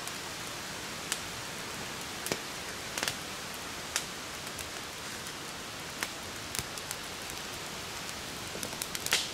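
Wood campfire burning with a steady hiss, broken by sharp crackles and pops at irregular intervals; the loudest pop comes near the end.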